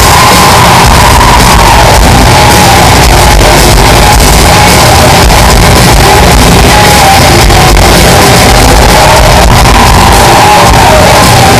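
Melodic death metal band playing live in a hall: distorted electric guitars carrying a melodic lead line over drums. The recording is pushed to full level throughout, so it sounds overdriven.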